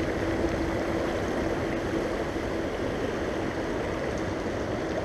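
Shallow river running steadily over rocks.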